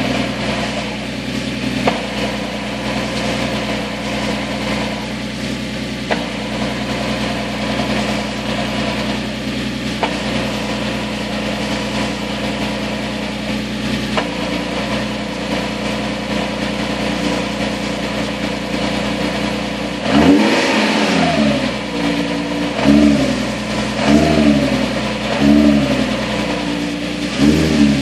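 Nissan 370Z's 3.7-litre V6 idling steadily on a cold start, then blipped in about five short revs over the last eight seconds. Its gearbox runs thicker Red Line MT-90 oil to damp the neutral rattle caused by the lightweight single-piece flywheel.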